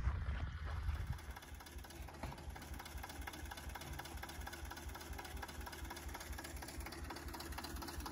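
Old tractor's engine running slowly with a steady, rapid low pulse as it pulls a vegetable seedling transplanter.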